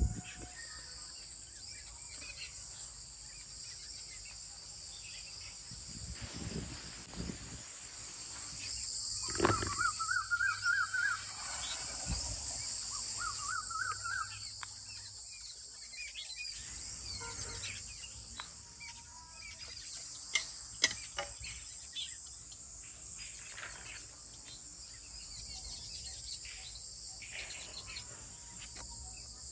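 Steady high-pitched insect drone with birds chirping and a warbling song now and then, and a couple of light clicks about two-thirds of the way in.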